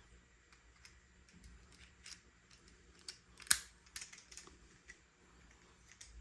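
Irregular sharp clicks and snaps of plastic being handled, the loudest about three and a half seconds in.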